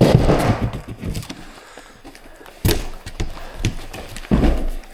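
Heavy thumps and knocks with rustling, loudest at the start, about two-thirds of the way in and again near the end.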